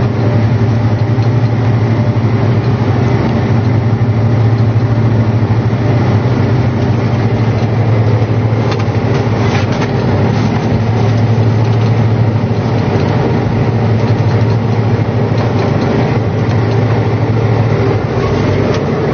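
John Deere 8295R tractor's six-cylinder diesel running steadily under load while pulling a peanut digger-inverter through the field, a strong even low hum with a few brief rattles about nine to ten seconds in.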